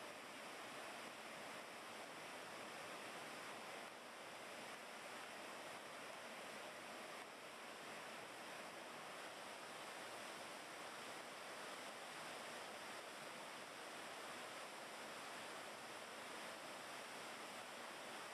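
Steady rushing of a waterfall and fast-flowing river water, an even hiss with no breaks.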